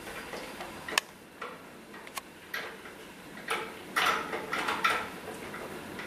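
Metal bolt being screwed into a new toilet seat: a few sharp clicks, then a stretch of scraping and rattling near the middle.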